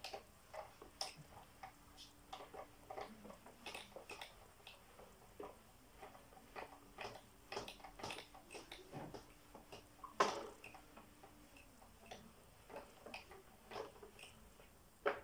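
Whiteboard eraser wiping across a whiteboard in short, quick, irregular strokes, with one louder knock about ten seconds in.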